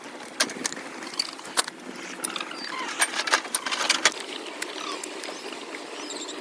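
A series of irregular sharp clicks and knocks of hard objects, clustered most thickly about three to four seconds in, over a faint steady background.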